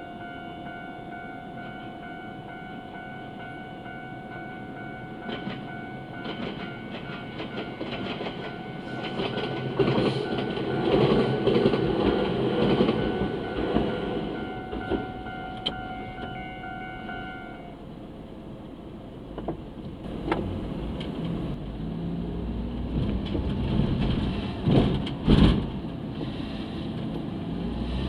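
A Japanese level-crossing warning bell rings steadily while a Ryutetsu Nagareyama Line electric train passes close by, its wheels rumbling and clacking over the rail joints. The bell cuts off a few seconds after the train has gone. A couple of sharp knocks follow near the end.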